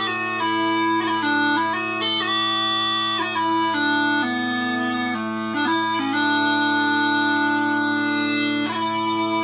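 A set of Quietpiper small pipes by Robert Felsburg being played: a chanter melody moving from note to note in quick steps over steady, unbroken drones.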